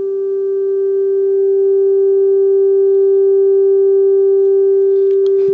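Steady audio test tone of about 400 Hz from the signal generator's modulation, heard through the HMV 475 valve radio's loudspeaker. It grows somewhat louder over the first couple of seconds and then holds: the tone being peaked as the IF transformers are aligned to 455 kHz.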